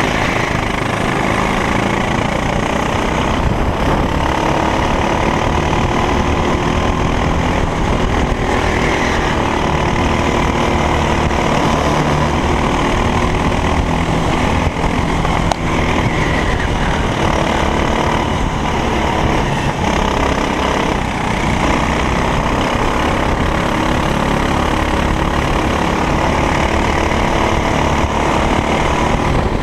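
A racing kart's engine running hard on track, its pitch rising and falling as the throttle opens and closes through the corners.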